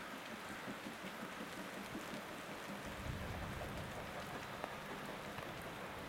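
Rain falling steadily, with a low rumble swelling about three seconds in.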